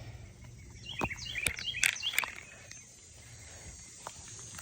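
A bird chirping in a quick run of short high notes about a second in, with a few sharp clicks mixed in.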